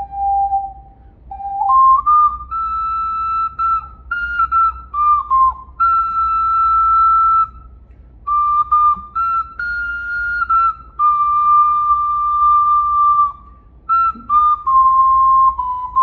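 Clay ocarina playing a slow melody one pure, whistle-like note at a time. Long held notes and short stepwise runs are broken by brief pauses for breath about a second in, near the middle and near the end.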